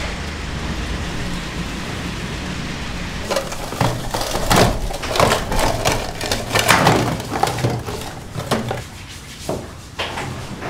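Irregular knocking and clattering of food being prepared, starting about three seconds in after a steady low hum.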